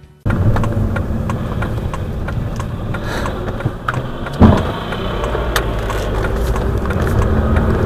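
A car engine running steadily, starting abruptly, with scattered clicks and one loud knock about four and a half seconds in.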